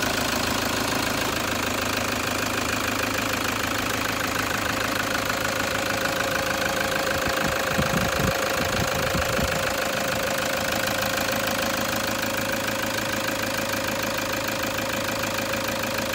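Toyota Hilux four-cylinder D-4D turbo-diesel engine idling steadily, heard from over the open engine bay. A few soft low thumps come about eight seconds in.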